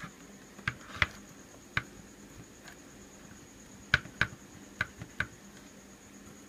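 Light clicks and taps of hard plastic toy parts being handled, a scattering of sharp single clicks with a quick cluster of four about four seconds in, over a faint steady hiss.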